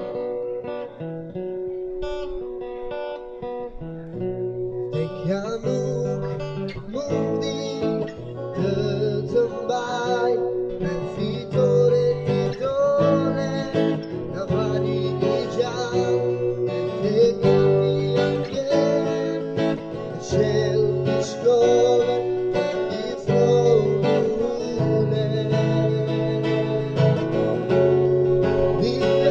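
Acoustic guitar strummed with a man singing into a microphone, played through a portable speaker. The guitar plays alone at first, and the singing comes in about five seconds in.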